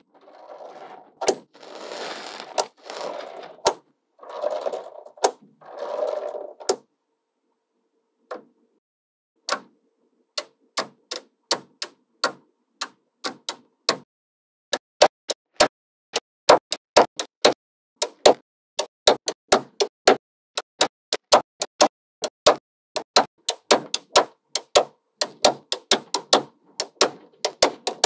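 Small magnetic balls handled and placed: several short spells of rattling as they roll against each other in the first seconds. Then sharp clicks as single balls snap onto the build, sparse at first, then about three a second from halfway in.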